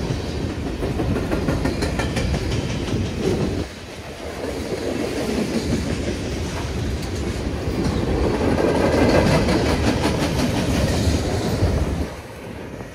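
Cars of a passing freight train rolling by, the wheels clicking over the rail joints. The sound dips briefly about four seconds in, is loudest in the middle, and falls away near the end.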